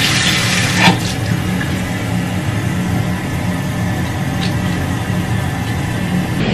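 An electric fan running steadily with a low motor hum and a broad whir, with a brief knock about a second in.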